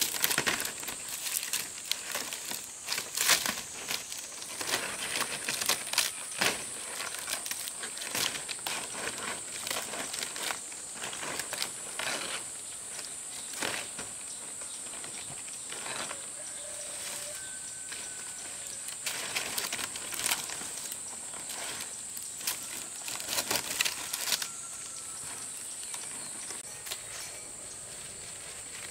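Palm leaves rustling and crackling as they are handled and laid over a bamboo frame, in irregular bursts that are densest in the first dozen seconds, over a steady high insect drone.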